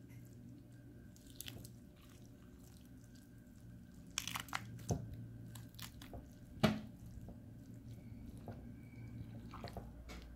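Roast chicken being shredded by hand and with a metal fork in a glass bowl: scattered soft tearing and squishing of meat, with sharp clicks of the fork against the glass. A cluster comes about four seconds in and the loudest click near seven seconds, over a low steady hum.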